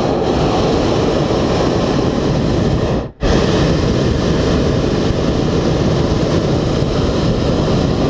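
Hot air balloon's propane burner firing overhead: a loud, steady roar that cuts off for a split second about three seconds in and then comes straight back on.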